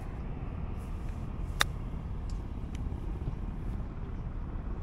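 A golf club striking a golf ball on a short approach chip: one sharp click about one and a half seconds in, over a steady low rumble.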